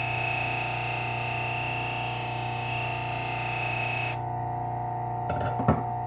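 Bucktool low-speed sander running with a steady hum while a knife blade is held against the spinning abrasive for about four seconds, giving a hissing grind with a high whine. The grind stops, and a few knocks follow near the end.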